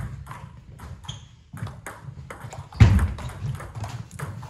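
Table tennis rally: the ball clicking off bats and table in quick succession, with one louder thud about three seconds in.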